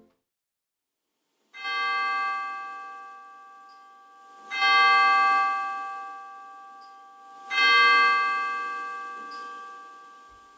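A bell struck three times, about three seconds apart, starting about a second and a half in; each stroke rings on and fades slowly.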